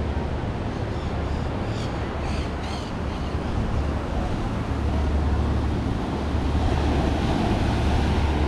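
Wind buffeting the microphone outdoors: a steady rushing noise with a low rumble that comes and goes in long gusts, and a few short high chirps about two to three seconds in.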